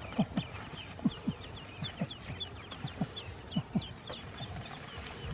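A group of ducklings peeping in many short, high chirps, mixed with a series of louder low clucking calls about two a second.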